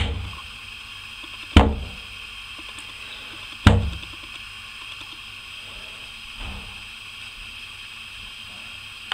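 Three heavy thumps about two seconds apart, with a fainter fourth a few seconds later, over a steady hiss.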